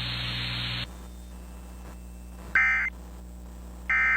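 Weather radio static hiss that cuts off just under a second in, then EAS SAME end-of-message data bursts: short, buzzy, raspy two-tone squawks, one about two and a half seconds in and a second starting near the end, about a second and a half apart.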